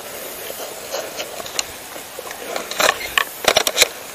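A quick, irregular cluster of sharp clicks and knocks in the second half, over a low rustle.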